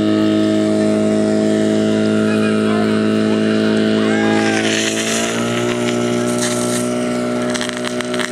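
Portable fire pump's engine running steadily at high revs. About five seconds in its pitch drops slightly, as the pump takes load and sends water into the hose lines. A rough crackle joins it near the end.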